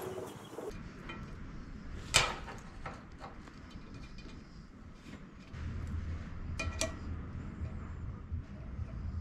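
Hand tools clinking on the metal of a jaw crusher part as a screw hole is tapped. There is one sharp clink about two seconds in and another near seven seconds, over a low hum that starts after about five and a half seconds.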